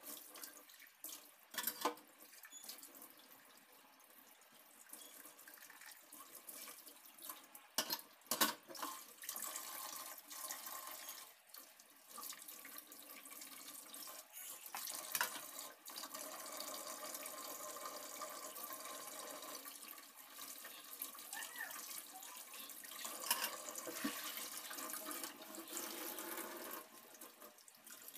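Kitchen tap running into a sink as dishes are washed by hand, with a few sharp knocks and clinks of a plate and a steel pot being handled.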